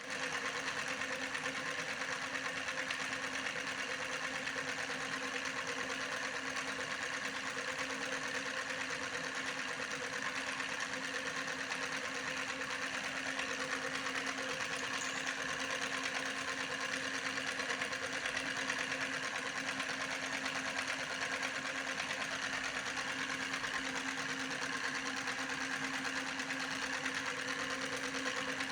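A small motor running steadily, an even whir with a constant hum that does not change.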